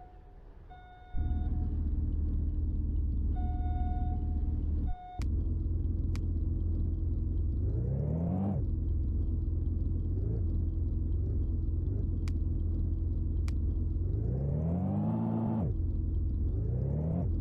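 An engine sound effect starts about a second in and runs as a steady low hum, revving up several times in quick rising sweeps that cut off abruptly. An on-off electronic beep sounds over the opening seconds, with a few sharp clicks.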